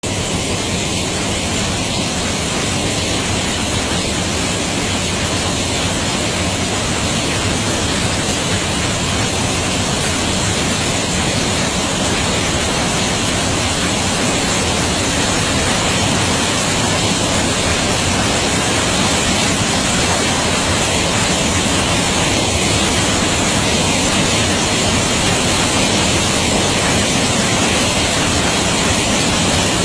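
River in sudden flash flood: a steady, loud rush of floodwater churning over rocks, growing a little louder through the first half as the torrent swells.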